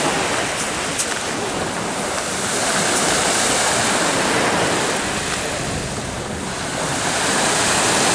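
Sea waves washing onto the shore of the Sea of Azov, a steady rush of surf that swells and eases every few seconds, with wind buffeting the microphone.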